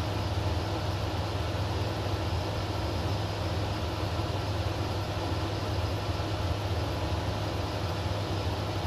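Steady cabin drone of a Zenith CH-650 light aircraft in level cruise: the piston engine and propeller running at constant power, with airflow noise over it.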